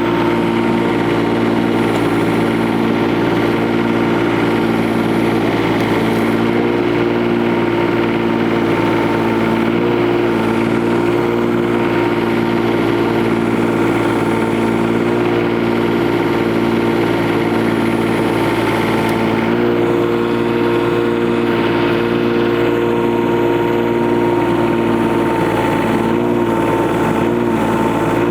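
Kubota U10-5 mini excavator's three-cylinder diesel engine running steadily while the hydraulics work the bucket and boom and the machine tracks slowly backwards; the engine's pitch shifts slightly about two-thirds of the way through.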